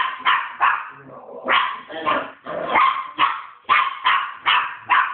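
Small cairn terrier–poodle cross dog barking repeatedly in short, sharp, high yaps, about two or three a second, with a brief pause about a second in.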